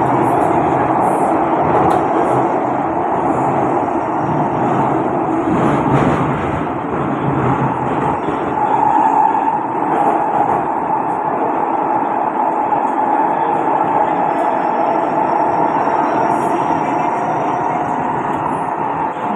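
Cabin noise of an SMRT C151B train running between stations: a steady rumble of wheels on rail with a constant whine and a few brief clicks.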